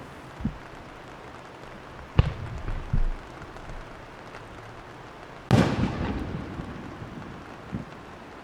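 Aerial firework shells bursting overhead in separate bangs: a sharp report a little after two seconds in and another about a second later. The loudest comes past the middle, and its rumbling echo fades over about two seconds, with a few fainter pops around them.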